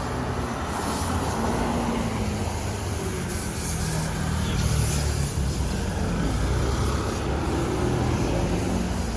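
Street traffic: the steady noise of motor vehicles with their engines running close by.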